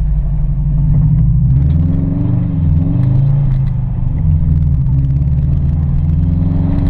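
Vehicle engine running while driving on an off-road trail, its engine speed rising and falling a little a couple of seconds in.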